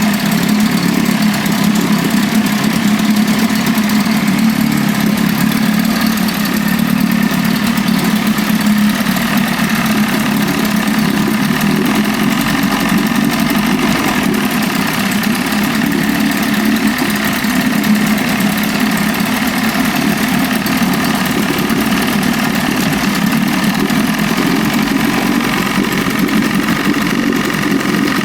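1981 Evinrude 25 HP two-stroke, two-cylinder outboard motor running steadily at low rpm during the break-in of a freshly rebuilt engine.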